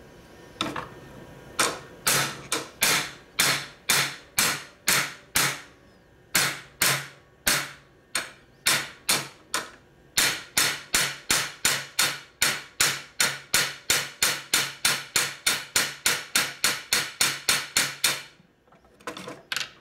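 Ball-peen hammer striking a steel motorcycle clutch basket held against a vise: sharp ringing metal blows, steady at first with a short pause, then a quick run of about three a second for some eight seconds, stopping just before a last two blows near the end.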